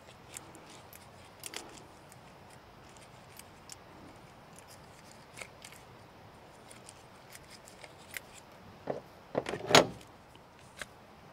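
Light clicks and rattles of a plastic PEX deburring and depth-gauge tool and a marker being handled against PEX tubing, with a louder run of clicks about nine to ten seconds in.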